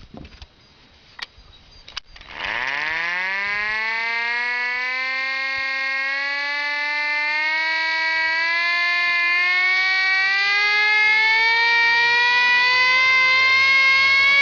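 Hand-cranked mechanical air raid siren winding up. After a few light knocks, its wail starts about two seconds in, climbs quickly at first, then keeps rising slowly in pitch and loudness.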